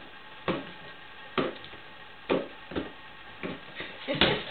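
A series of sharp knocks and thuds, roughly one a second, from a ball being knocked about in play with a dog, with a louder thud near the end.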